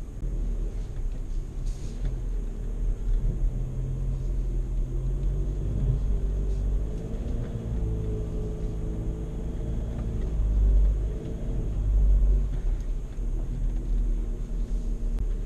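VW Amarok's 2.0 BiTDI four-cylinder diesel engine pulling the truck over off-road terrain: a deep, steady rumble whose engine note rises and falls in the middle of the stretch, loudest a few seconds before the end.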